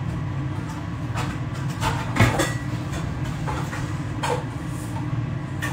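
A steady low hum with a few light knocks and clatters, the sharpest about two seconds in, as kitchenware such as a stainless pot is handled.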